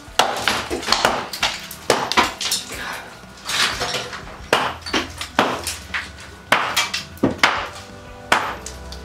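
Hammer blows knocking plaster and brick off a wall: sharp, irregular knocks about one or two a second, with background music underneath.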